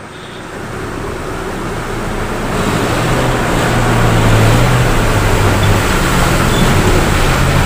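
Daihatsu Rocky 4x4 engine working hard as it drives through a muddy puddle, growing louder as it comes closer, with mud and water churning under the tyres.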